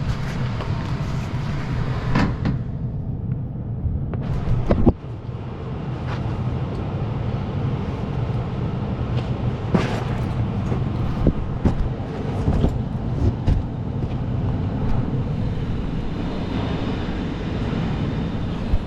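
Steady low mechanical hum with a few sharp knocks, the loudest about five seconds in.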